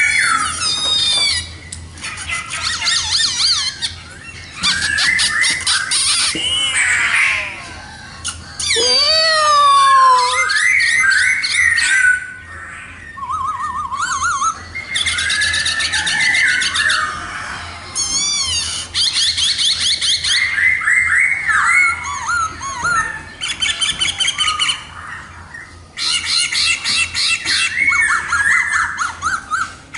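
Black-throated laughingthrush singing a long, varied song in phrases separated by short pauses: slurred whistles that glide up and down, mixed with rapid trills and harsher buzzy notes.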